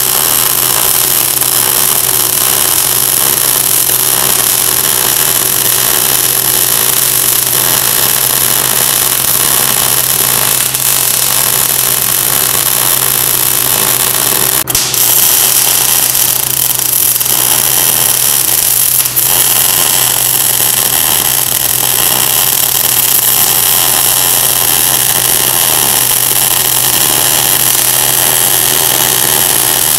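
MIG welder running a bead around the joint between a rod eye and a chrome hydraulic cylinder rod: a steady arc hiss and crackle over a low hum, with a short break about halfway through. It is the first full pass of a multi-pass weld.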